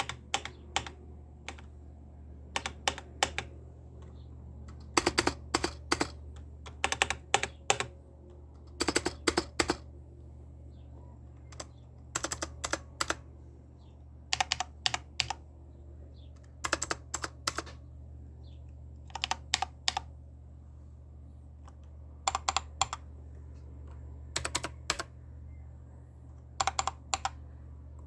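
Keys of a mechanical keyboard being typed in short bursts of about three to six keystrokes, roughly every two seconds, with short pauses between bursts. A steady low hum runs underneath.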